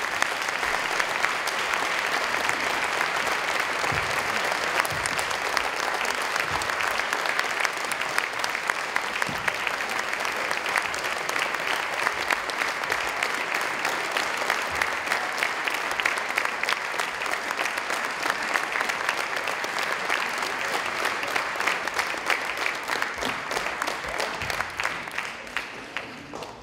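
Audience applauding, a dense, steady clatter of many hands clapping that dies away near the end.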